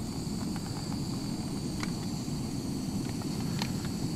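Canister gas camping stove burner running with a steady low roar under a pot of water coming to the boil, with a faint steady high whine above it. A few light crinkles come from a paper soup-cup lid being peeled.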